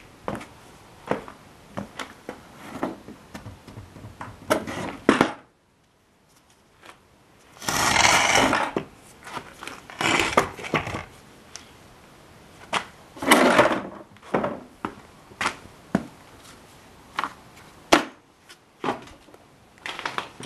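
Heavy metal parts being shifted about by hand: scattered clunks and knocks with several longer scraping drags, each about a second long, after a brief break about five seconds in.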